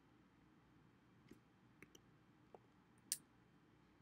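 Near silence with a few faint clicks of a computer mouse, then one sharper, louder click about three seconds in.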